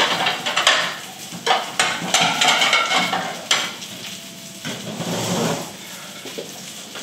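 A utensil scrapes and knocks against a frying pan in irregular strokes while breaded nuggets are lifted out of the hot fat, which sizzles underneath.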